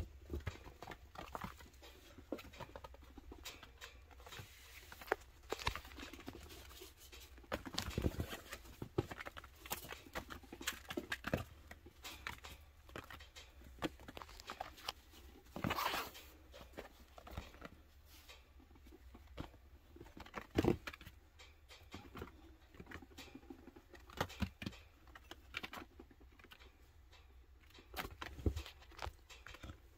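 Baby chinchillas scampering about a playpen: scattered light pattering and scrabbling of small paws, with a brief scuffle and a few sharper knocks.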